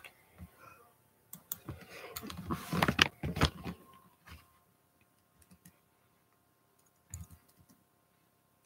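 Close-up handling noise at the device's microphone: a burst of clicks, knocks and rustling from about one to four and a half seconds in, then a few scattered clicks and a short cluster near the end.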